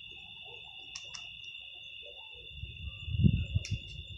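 Crickets trilling on and on in a steady, high-pitched chorus. A few clicks about a second in and some low thumps about three seconds in are the loudest sounds.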